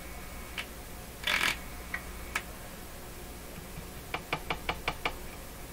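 Low steady hum under a few scattered light clicks. About four seconds in comes a quick run of about seven sharp clicks within one second.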